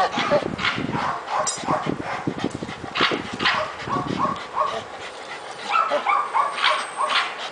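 Bull terrier whining and yipping in short, repeated cries while it hangs from a tug rope by its jaws, amid rustling and knocking.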